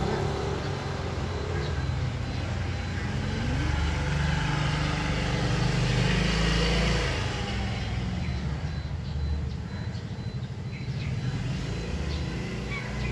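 Road traffic on the street behind the gate: motor vehicles going by with a low engine rumble, swelling as one passes close about six seconds in and falling away soon after.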